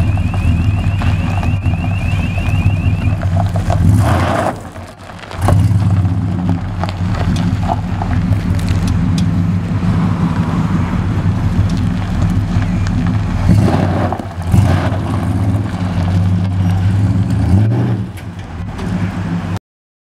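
1968 Plymouth Fury III engine running at idle through a new custom exhaust, with louder swells about five and fourteen seconds in. A rapid high beeping sounds for the first three seconds. The sound cuts off suddenly near the end.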